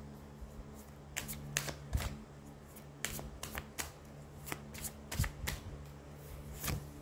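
Tarot cards being shuffled by hand: a run of light, irregular card flicks and snaps, over a faint steady hum.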